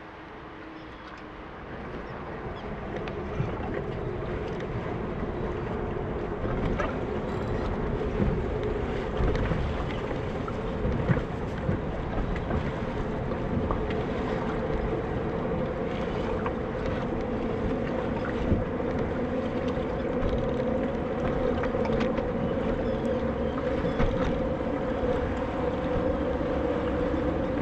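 Boat motor running with a steady hum, growing louder over the first few seconds and then holding, over wind and choppy water.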